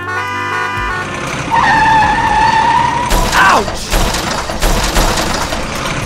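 Background music with an added sound effect: a long held tone that bends up and then falls away, followed by a steady noisy rumble with regular low thuds, like a vehicle sound effect.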